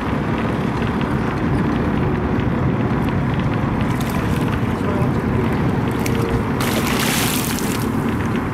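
Steady rumble of a boat on the water with wind buffeting the microphone, and a short splash about seven seconds in as a king salmon thrashes at the surface beside the boat.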